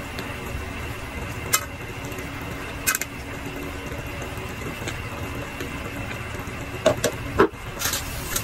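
Slotted spatula moving potato and carrot chunks in a pan of meat and liquid: a few short scrapes and knocks against the pan, with a cluster of them near the end, over a steady low rumble.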